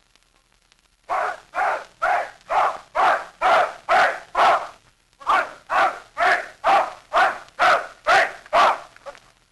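A dog barking over and over at a steady pace of about two barks a second. It starts about a second in and pauses briefly midway.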